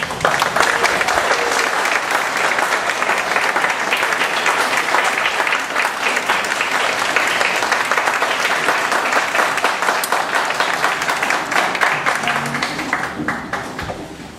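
Audience clapping steadily, dying away near the end.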